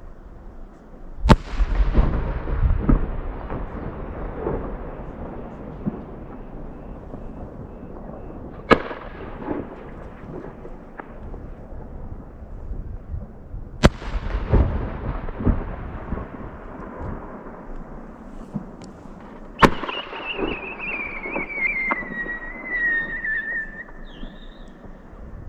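Aerial firework shells bursting four times, each a sharp bang followed by a long rolling echo. After the last burst, a whistle tone falls slowly in pitch for about four seconds.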